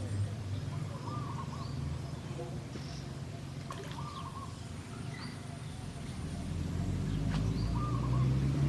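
A bird repeats a short call about every two and a half seconds, with fainter high chirps between. A low rumble grows louder near the end.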